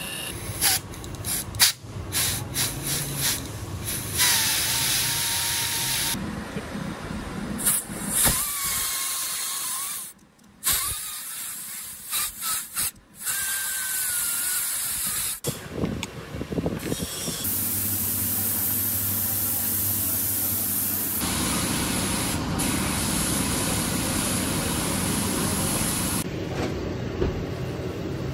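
Hissing and spraying in short, abruptly cut stretches as motorcycle fuel injectors are cleaned and tested.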